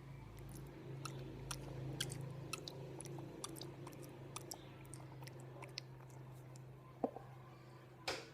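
Homemade slime being squished and worked by hand: an irregular string of small sticky clicks and crackles over a low steady hum, with a sharper knock near the end.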